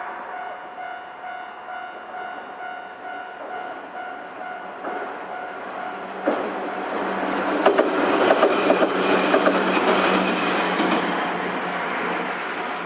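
Japanese level-crossing alarm ringing steadily, then a Nankai electric train passing over the crossing from about six seconds in, its wheels clattering over the rail joints, loudest from about seven to eleven seconds, with a low steady hum, before the sound eases off while the alarm keeps ringing.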